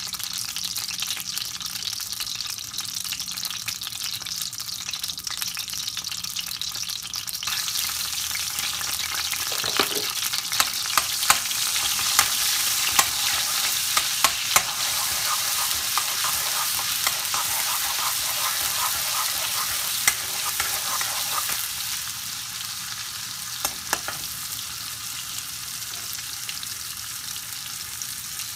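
Hot oil sizzling in a karahi, with whole seeds and then garlic-ginger paste frying in it, stirred with a metal spoon that clicks and scrapes against the pan. The sizzle gets suddenly louder about seven seconds in and eases off near the end.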